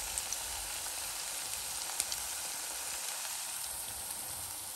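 Gobhi manchurian balls of grated cauliflower deep-frying in hot oil in a kadai: a steady sizzle with a few sharp pops, the loudest about two seconds in.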